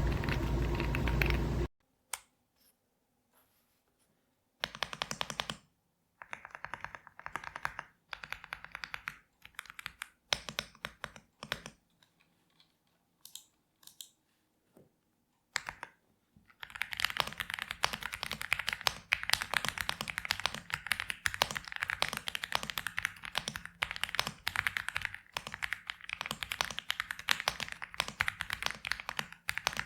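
Typing on an AULA F75 mechanical keyboard with pre-lubed Reaper switches: short scattered bursts of keystrokes at first, then fast continuous typing from about halfway through. Near the start, a loud steady noise cuts off abruptly.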